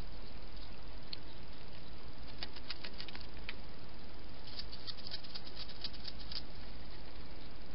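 Wild hedgehog at a feeding station making quick, crisp little clicks and crackles, a short run about two and a half seconds in and a longer, denser run from about four and a half to six and a half seconds, over a steady hiss.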